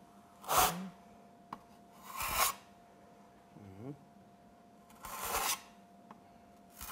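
Steel trowel scraping cement-based tile adhesive onto a wall board, four separate spreading strokes about two seconds apart.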